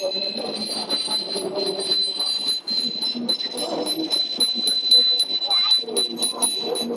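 Bicycle bells rung over and over by a passing crowd of cyclists, overlapping rings keeping up a steady high jingle, with riders' voices underneath.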